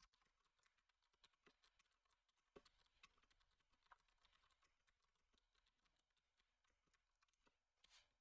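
Very faint typing on a computer keyboard: a quick, irregular run of key clicks.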